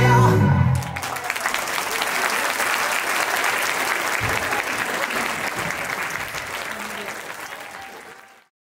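A song's music stops abruptly about a second in, and an audience claps and cheers, the applause slowly fading out near the end.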